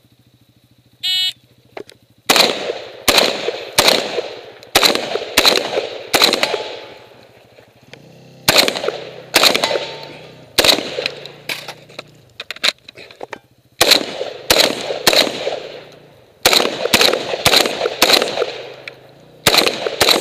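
An electronic shot timer gives its short start beep, and about a second later a 12-gauge shotgun starts firing in quick strings of shots, roughly half a second to a second apart, broken by short pauses.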